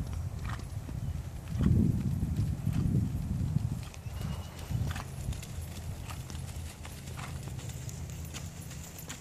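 Hoofbeats of a Tennessee Walking Horse gelding moving at a flat walk or running walk on a sand arena, a steady run of soft, muffled footfalls. They are loudest from about one and a half to three and a half seconds in.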